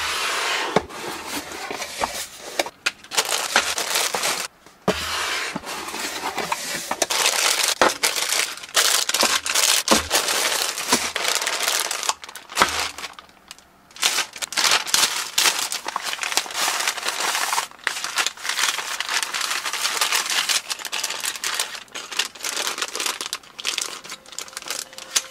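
Clear plastic bags of building-brick parts crinkling and rustling as they are lifted and handled, with occasional sharp clicks and short pauses.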